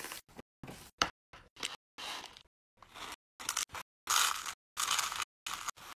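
Plastic bags of slime add-ins (foam beads and glitter flakes) crinkled under a hand, and clay sprinkles poured into a clear plastic tub: a string of short crinkling and rustling sounds, loudest about four seconds in.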